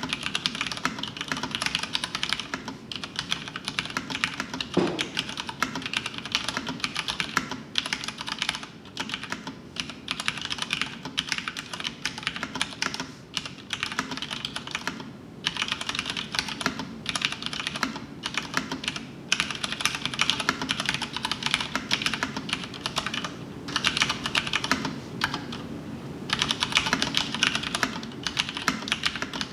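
Continuous fast typing on a Filco Majestouch 2 mechanical keyboard with Cherry MX Brown switches and PBT keycaps: a dense stream of key clacks broken by a few brief pauses.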